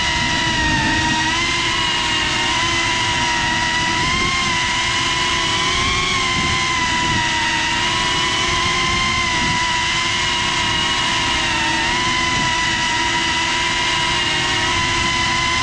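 GEPRC CineLog35 cinewhoop FPV drone hovering: its brushless motors and ducted propellers give a steady high whine that wavers slightly in pitch, with a rough rush of air from the props on the onboard camera's microphone.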